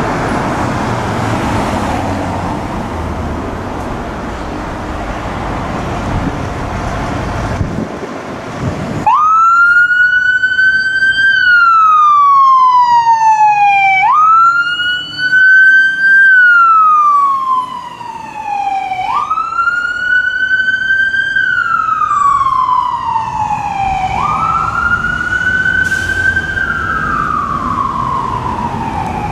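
Siren of a 2017 E-One Typhoon fire engine coming on about nine seconds in and wailing in a repeating cycle: a quick rise in pitch, then a slow fall, about every five seconds, four times over. Before the siren starts there is a steady rumble of engine and traffic noise.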